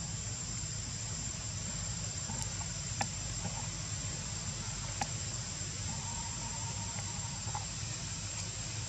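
Steady, high-pitched insect drone over a low rumble of outdoor background noise, with a couple of faint clicks about three and five seconds in.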